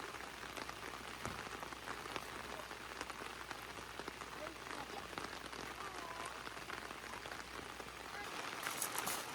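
Steady patter of light rain, an even haze of fine ticks, with sharper drops near the end.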